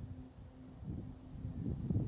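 Low wind rumble on the microphone with a faint hum, in a lull between shots.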